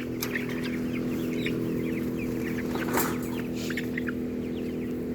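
A flock of chickens clucking and peeping with many short, overlapping calls, over a steady low mechanical hum.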